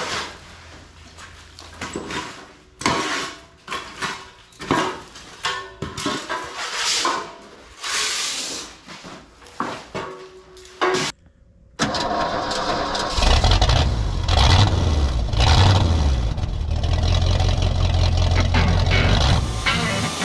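A string of short knocks and clatters, then, after a brief drop out about 11 seconds in, an engine starting and running loud and low, its level rising and falling for a few seconds before it settles to a steady run.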